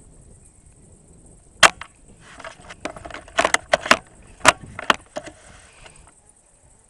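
Well MB08 bolt-action spring airsoft sniper rifle firing with a single sharp crack about one and a half seconds in, followed by a run of mechanical clicks and clacks over about three seconds as the bolt is worked to cock it again.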